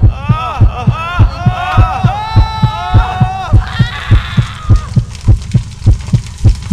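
Soundtrack of a steady, fast low thumping beat, about three thumps a second. For the first four seconds or so, a tangle of wailing tones that swoop up and down rides over it and then fades.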